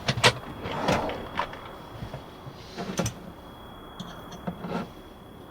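Kitchen handling sounds while a quesadilla is being put together: several sharp clicks and knocks, the loudest near the start and about three seconds in, and a brief scrape about a second in.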